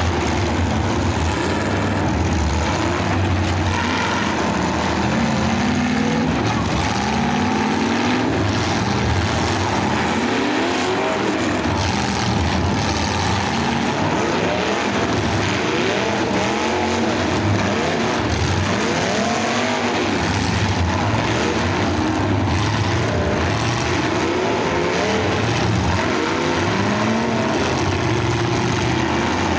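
Several full-size demolition derby cars' engines revving up and down over one another, their pitches constantly rising and falling.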